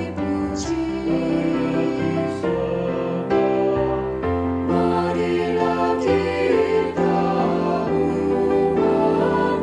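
Mixed church choir singing a hymn in Indonesian, with sustained chords. The women's voices sing a line, then the men's voices take the next phrase about four seconds in, and the full choir joins near the end.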